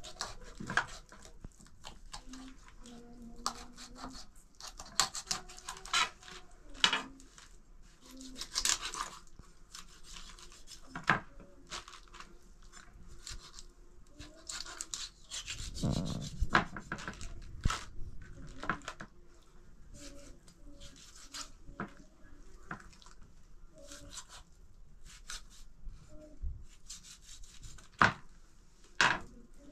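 Irregular rubbing and scraping, broken by scattered sharp knocks and clicks.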